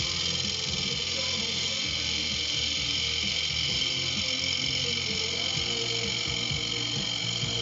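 Wood lathe turning an oak blank while a turning tool cuts it: a steady cutting hiss over the lathe's hum, with radio music playing underneath.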